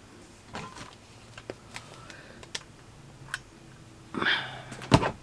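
Hands working craft materials on a work table, filling in bits of moss with a glue gun: scattered light taps and rustles, a louder rustle about four seconds in, then two sharp clicks near the end.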